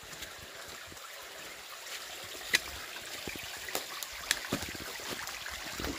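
Creek water running steadily, with a few sharp clicks over it, the loudest about two and a half seconds in.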